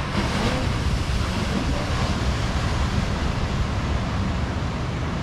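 Steady road and wind noise of a moving car, a low rumble with a rushing hiss over it.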